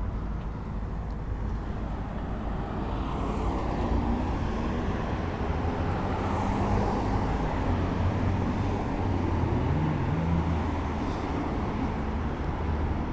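Road traffic noise: motor vehicles running close by, a steady rush with low engine hum that gets louder a few seconds in.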